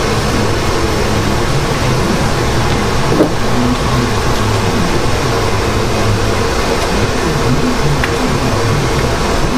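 Carpet-drying fan rebuilt with a variable-speed ECM blower motor, set to half speed, running steadily: a constant rush of air over a low hum. A faint tap or two from hands working on the engine.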